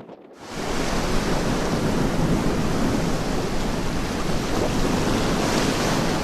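Steady rushing noise of sea waves and wind at sea, coming in abruptly about half a second in.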